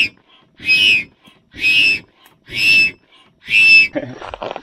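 Breath blown in short, forceful puffs onto glowing campfire embers to coax the fire up, about one puff a second with a whistling note in each rush of air, five puffs in all. Fainter rustling follows near the end.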